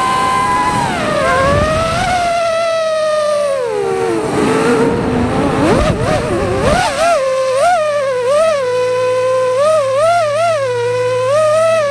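Small drone's electric motors and propellers whining. The pitch falls as the drone comes down to the ground, wavers, then settles into a steady lower whine. From about halfway on it is broken by short repeated blips of throttle that briefly raise the pitch.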